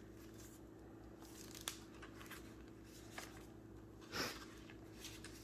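Quiet handling of a handmade paper journal: soft rustles and small ticks as pages are turned, with a louder, brief page rustle about four seconds in. Low room tone and a faint steady hum underneath.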